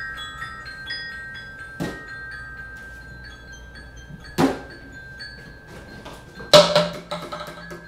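High-pitched mallet percussion played loosely: short bell-like notes ringing over one another and dying away. Three sharper struck hits cut through, about two, four and a half and six and a half seconds in, the last the loudest and followed by a low ringing tone.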